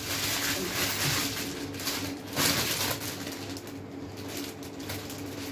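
A clear plastic bag crinkling and rustling as it is handled and folded, in two main rustling spells about a second long, over a steady low hum.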